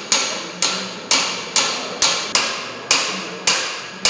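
Hammer striking metal, about two blows a second at a slightly uneven hand pace, each blow ringing briefly.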